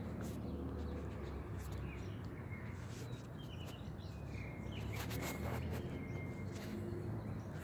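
Outdoor ambience: a steady low rumble with a few short bird chirps in the middle, and some brief clicks.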